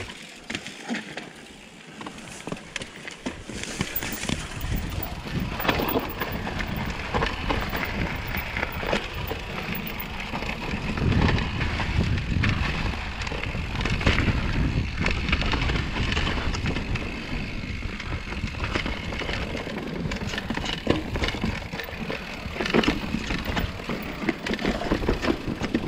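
Mountain bike descending rough dirt and rock singletrack: tyres rumbling and crunching over the ground, with many sharp clattering knocks from the bike as it rattles over rocks and roots.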